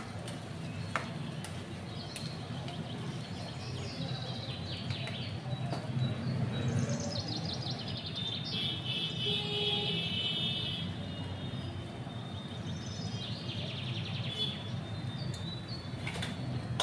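Small birds chirping in quick repeated trills, in several bouts, over a steady low hum. There is one sharp click about a second in.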